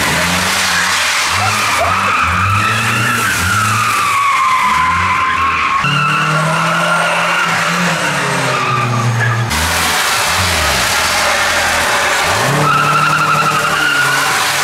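Old Toyota Camry's engine revving hard, its pitch climbing and falling again and again as the car spins in circles. Over it runs a continuous screech of metal scraping and sliding on asphalt, sparking under the rear wheels. The engine is running on baby oil instead of motor oil.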